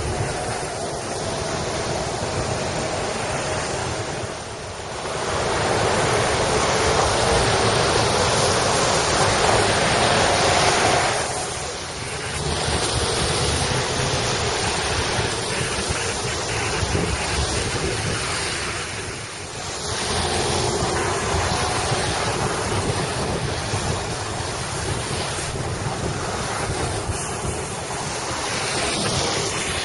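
A loud, rushing mix of wind buffeting the microphone and breaking waves. It swells and eases every several seconds.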